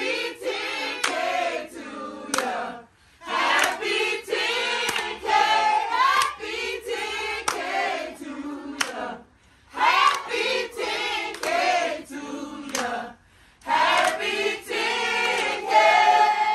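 A group of people singing together in four phrases with short breaks between them, with scattered hand claps.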